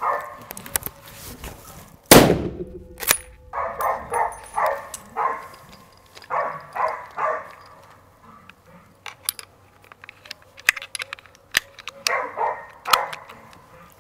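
A hunting dog barking in runs, baying at a wild boar it holds in place, played from a shooting simulator's film. About two seconds in, a single loud rifle shot goes off in the room, followed a second later by a sharp click.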